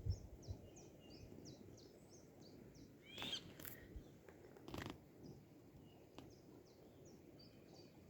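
Faint outdoor nature ambience: small birds chirping over and over in short high notes, with a louder call about three seconds in, over a low steady hiss.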